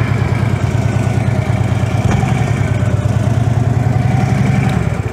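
Heavy touring motorcycle's engine running steadily at low speed, its closely spaced firing pulses heavy in the low end, as the bike creeps slowly through a cone weave. The sound cuts off abruptly at the very end.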